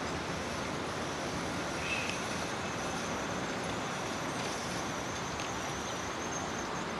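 Vintage streetcar rolling slowly around a curve toward the listener: a steady running noise with a faint high whine through the middle and a short chirp about two seconds in.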